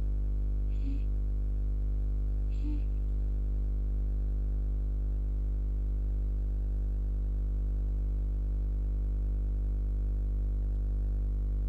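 Steady low electrical hum with many evenly spaced overtones, unchanging throughout, with two brief faint blips about one and two and a half seconds in.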